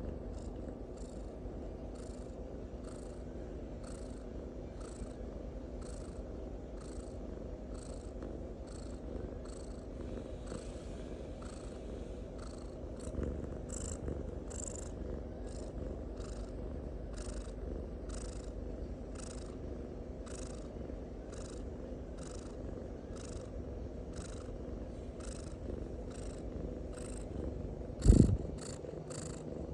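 Calico cat snoring, short breathy snores repeating evenly about one and a half times a second. One loud thump about two seconds before the end.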